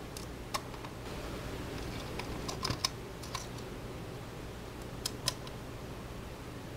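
Small sharp clicks and taps of a screwdriver on screws and the metal base of a dome camera as copper pillar screws are driven in: a quick cluster about two and a half seconds in and a close pair near five seconds, over a steady low hum.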